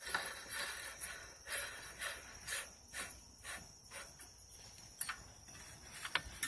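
The metal front housing of a Keene P180 water pump being spun by hand onto its threaded shaft, giving light metallic ticks about twice a second as it turns.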